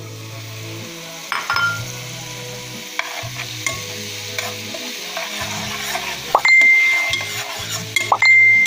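Minced food sizzling in oil in a stainless-steel pan while a metal spoon stirs and scrapes it, with sharp clinks against the pan. From about two-thirds of the way in, the spoon scraping the pan gives loud, high, ringing squeals.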